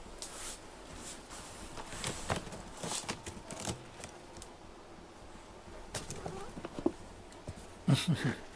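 A cat stepping across corrugated-cardboard scratching pads: soft, irregular scratchy clicks and rustles of paws and claws on cardboard, with a louder scuffle near the end.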